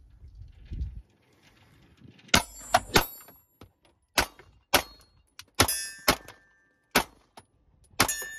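S&W M&P9 Metal 9mm pistol firing a string of shots about half a second to a second apart, starting a couple of seconds in, at steel plate targets. Some hits leave the steel ringing with a high, lingering tone.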